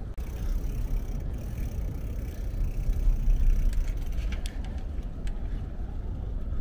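Dahon Vybe D7 folding bike rolling along a wooden boardwalk: a steady low rumble of the tyres on the planks, with a few light clicks.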